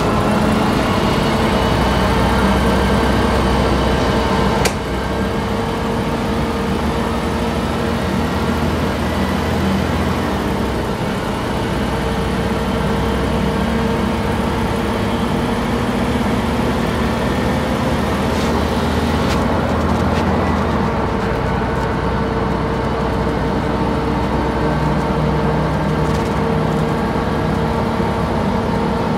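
Engine of a 1998 Volvo Neobus 405GZ articulated city bus, heard from inside the cabin as the bus drives: a steady drone with a humming tone whose low rumble swells and eases with load. A sharp click comes about five seconds in.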